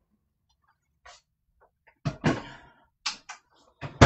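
Plastic Tupperware Stack Cooker knocking and clunking as it is put into a microwave oven, several short knocks about a second apart, ending with a sharp thunk near the end, the loudest, as the microwave door shuts.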